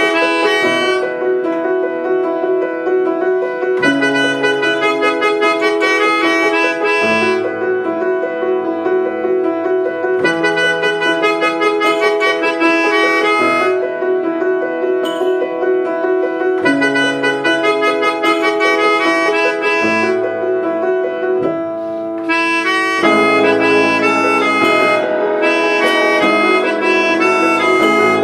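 Instrumental ensemble: a melodica plays the melody over upright piano chords and keyboard strings. About three-quarters of the way through the sound grows fuller and louder, with an electronic percussion pad joining in.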